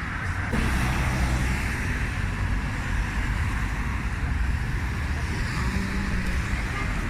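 Steady street noise of road traffic passing, an even rumble and hiss with no single event standing out.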